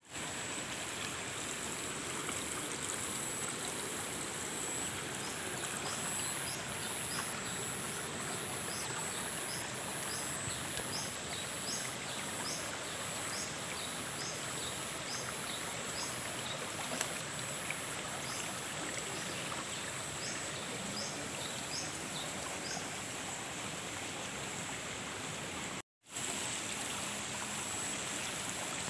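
Water rushing and gurgling steadily along a small irrigation ditch. A high, regular chirping repeats about twice a second in the background, and the sound cuts out briefly near the end.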